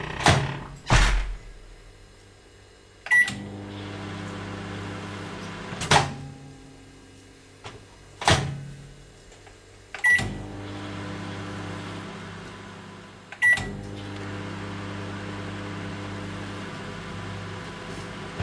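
Microwave oven with an old light bulb inside. Its door clunks shut, a short beep sounds, and the oven runs with a steady low hum. The run is stopped by loud clunks, probably the door, and then the oven is started again with another beep and hums on.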